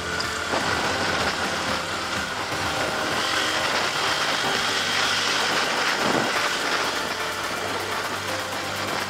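Dirt bike engine running under way as the bike is ridden along a rough, muddy trail, with a steady rush of noise throughout.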